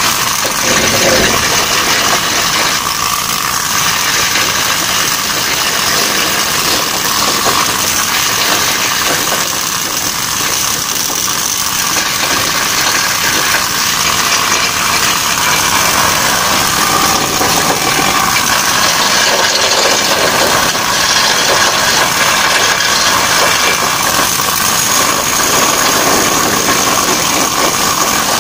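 Pneumatic chipping tool hammering rust off a ship's metal gangway: a loud, steady, rapid rattle of blows on metal.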